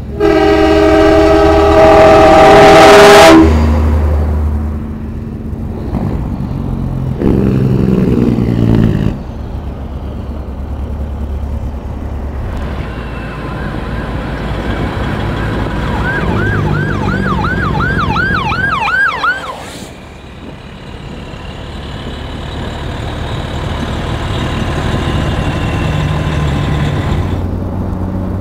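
Semi-truck air horn blasting loud and long, then a second, lower horn blast a few seconds later, over the low rumble of big diesel trucks rolling past. Past the middle a police siren yelps rapidly, about three times a second, for a few seconds.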